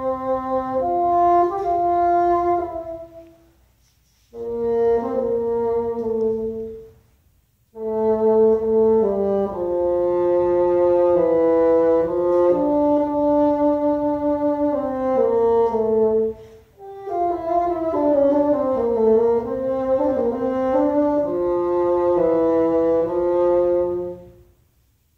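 Solo bassoon playing a melodic passage of held and moving notes in phrases, with short rests about 4 and 7 seconds in and a brief breath near the middle, stopping just before the end.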